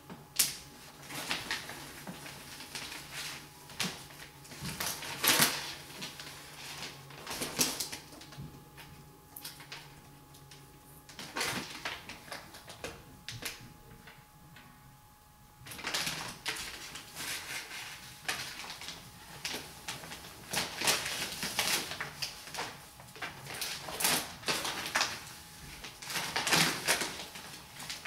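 Crinkling and rustling of a vinyl wall decal's clear plastic transfer sheet as it is handled and smoothed onto the wall: irregular crackles, with a quieter stretch about halfway through.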